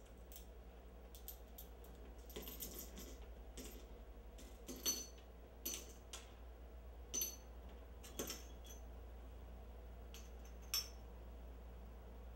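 Small hard objects spilled from a handbag clinking and tapping on a wooden floor and against each other as they are picked up, about a dozen irregular sharp clinks, some with a brief metallic ring, the loudest about five seconds in. A faint steady low hum runs underneath.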